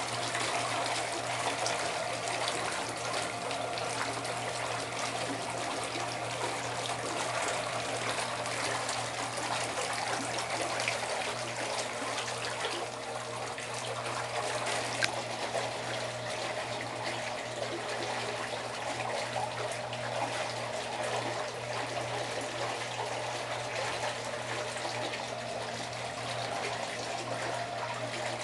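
Hot tub running its 10-minute cycle: water trickling and splashing steadily over a low, even hum from the pump.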